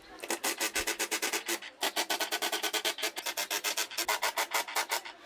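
Rapid back-and-forth scraping strokes, about seven a second, with two short breaks.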